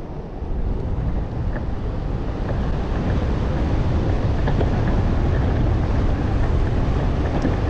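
Wind buffeting a helmet-mounted camera's microphone over the rumble of an electric skateboard's rubber wheels on rough, cracked asphalt. The noise grows louder over the first few seconds as the board gathers speed.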